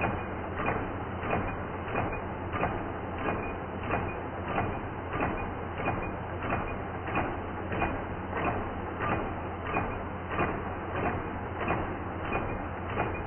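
Homemade battery- and electric-motor-driven magnet engine model running: a steady low hum and mechanical rattle with a sharp clack repeating evenly about every two-thirds of a second.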